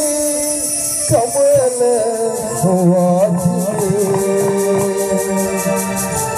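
A live band playing a devotional song through a PA. A voice sings over sustained electronic-organ keyboard chords. Drum hits come in about a second in, and a fast, steady high ticking keeps time from a little later on.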